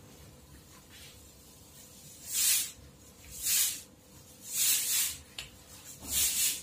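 Four short hisses, a little over a second apart, over a low background.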